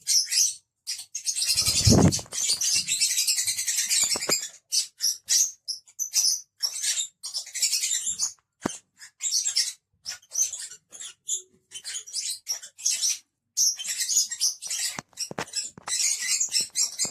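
Several pet lovebirds chirping and chattering in quick, short, high-pitched calls, with a louder, fuller burst of noise about two seconds in.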